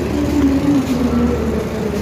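Steady low rumble of a train at a railway station, with faint wavering tones above it.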